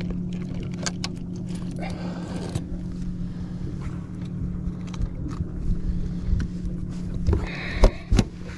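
A motor runs with a steady, even hum. Scattered clicks and rattles sound over it, and a few loud knocks come about seven to eight seconds in.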